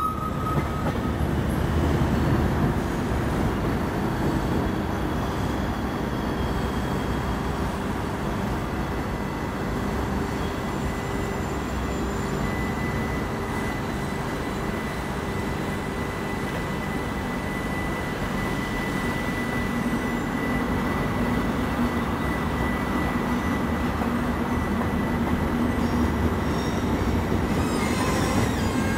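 Electric passenger trains rolling through a railway station: a steady noise of wheels on rails, with a thin, high wheel squeal held for several seconds in the middle.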